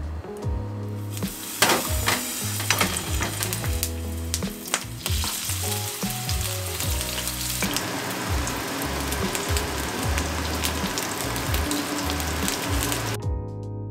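Eggplant slices sizzling and crackling as they shallow-fry in oil in a nonstick frying pan on a gas stove; the sizzle grows denser about halfway through and cuts off just before the end. Soft background music with a bass line runs underneath.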